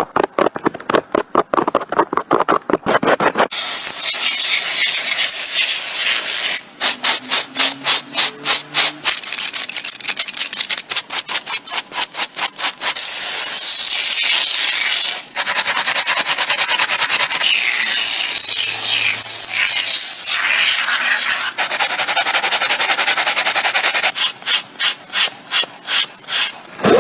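Abrasive sanding of a surface: quick back-and-forth strokes, several a second, alternating with stretches of continuous rasping scrape.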